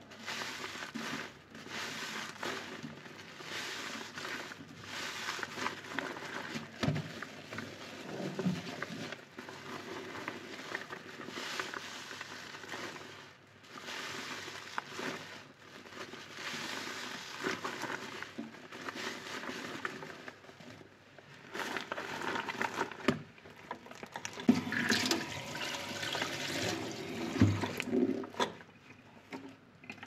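A soapy kitchen sponge loaded with dish detergent, squeezed and kneaded by hands in rubber gloves over a stainless steel sink. It gives wet squelching and crackling foam as suds and water press out, in repeated squeezes of a second or two, with the loudest ones near the end.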